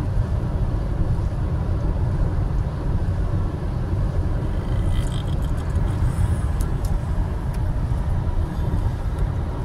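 Steady low road and tyre rumble inside a car's cabin as it cruises at highway speed on a wet road.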